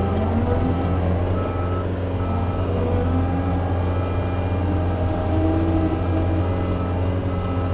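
John Deere 335P skid steer's diesel engine running steadily while working, its pitch shifting slightly as the machine moves. A backup alarm beeps about once a second.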